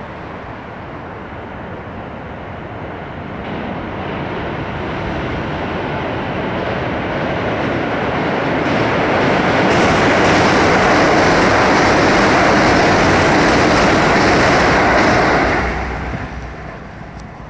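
Keisei 3600 series electric train crossing a steel railway bridge: its rumble builds over several seconds, stays loud for about six seconds, then drops away sharply near the end as the train passes.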